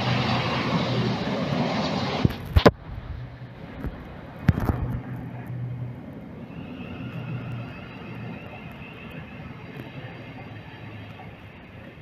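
Jet airliner engine noise, loud at first and cutting off abruptly about two and a half seconds in with a couple of sharp knocks. Another knock comes a couple of seconds later, then a much quieter steady background with a faint high tone.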